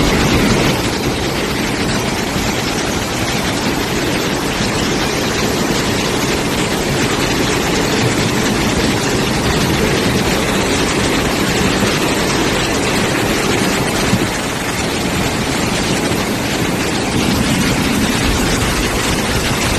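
Floodwater rushing: a loud, steady, deep rushing noise that keeps on without a break.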